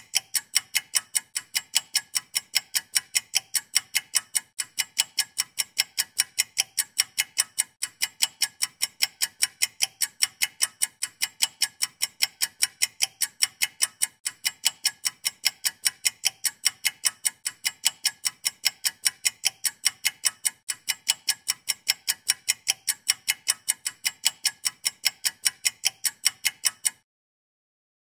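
Ticking clock sound effect: rapid, evenly spaced ticks at a steady level, which stop suddenly about a second before the end.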